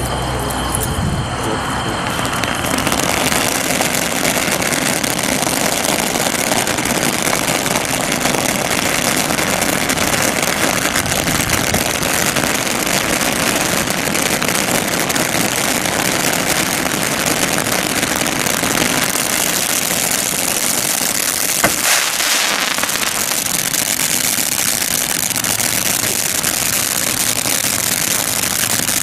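Hokus Pokus Category 2 fountain-and-mine firework spraying sparks with a loud, steady hiss. One sharp crack about three-quarters of the way through.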